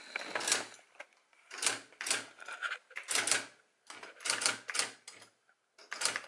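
Triumph-Adler SE310 electric typewriter printing as keys are typed: rapid runs of mechanical strikes in bursts of about half a second to a second, with short pauses between them.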